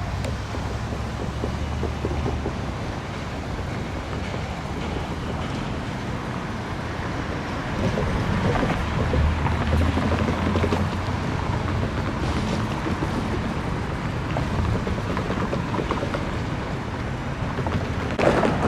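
Road traffic running steadily, with low engine rumble; louder from about eight seconds in.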